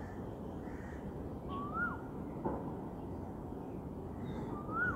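A bird gives a short whistled note that rises and then falls, twice, about three seconds apart, over steady outdoor background noise. A single click comes about halfway.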